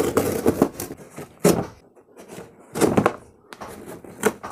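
Kitchen knife cutting through packing tape on a cardboard shipping box, in a few short scraping strokes, with the tape and cardboard rustling as it is pulled open.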